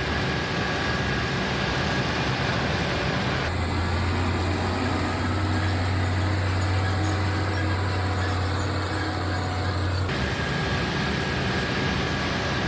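Heavy farm machinery running steadily, with a constant engine drone. Abrupt changes about a third of the way in and again near the end mark cuts between shots; the middle shot has the strongest low engine hum.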